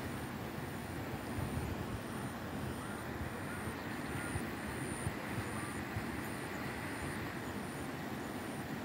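Steady rushing roar of a swollen, fast-flowing river in flood, with a low rumble underneath.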